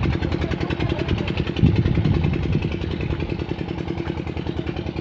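Single-cylinder diesel 'peter' engine running steadily with a rapid, even firing beat while it pumps well water into an irrigation channel, growing a little fainter near the end.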